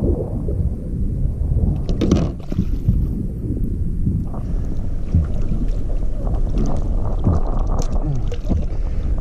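Wind buffeting the microphone over water sloshing and splashing against the side of a paddleboard as a black drum is handled alongside, with a couple of sharp knocks about two and four and a half seconds in.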